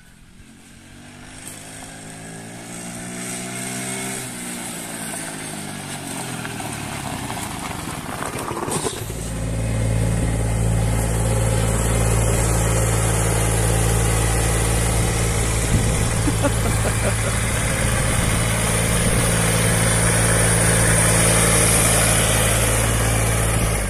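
A small vehicle engine some way off, its pitch rising and then falling over the first several seconds. About nine seconds in it gives way to the Kubota G23 II ride-on mower's diesel engine heard close up, running loudly and steadily.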